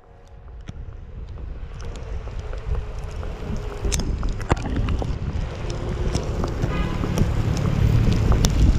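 Wind buffeting a moving action camera's microphone, a heavy low rush that grows steadily louder, with scattered sharp ticks and taps.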